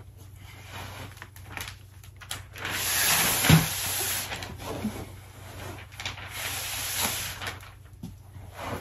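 Gift items and wrapping being handled on the floor: two stretches of rustling, the first with a sharp knock about three and a half seconds in.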